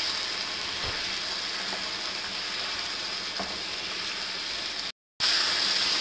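Goat trotters sizzling as they fry in an oil, yogurt and spice masala in a wok, stirred with a wooden spatula, with a faint knock now and then. This is the bhuna stage of cooking paya. The sizzle breaks off for a moment about five seconds in and comes back louder.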